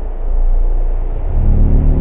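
Deep, steady rumble with a low droning hum that swells in about a second and a half in, the kind of bass drone used to score a sci-fi scene.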